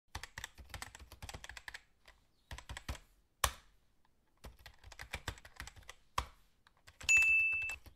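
Computer keyboard typing in quick runs of keystrokes, with one louder single click about three and a half seconds in. Near the end a short, loud, high electronic beep lasts under a second.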